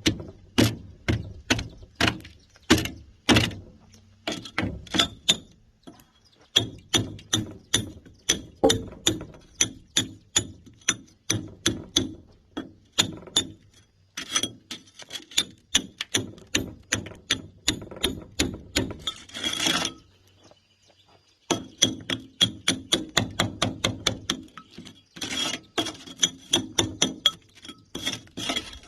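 Hand hammer striking a steel chisel to break concrete: fast runs of sharp blows, about three to four a second, each with a short metallic ring, broken by brief pauses.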